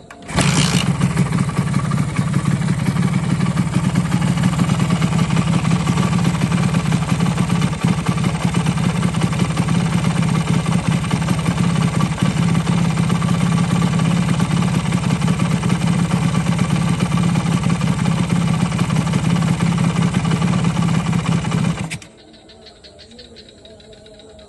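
Suzuki motorcycle engine running at a steady idle during carburettor adjustment, with no throttle blips. The sound starts suddenly just after the start and cuts off suddenly about 22 seconds in.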